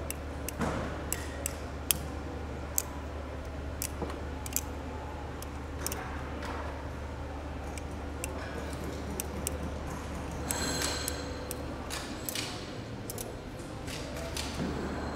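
Irregular light metallic clicks and clinks over a steady low hum of workshop machinery. Around ten to twelve seconds in, a faint high ringing tone joins in.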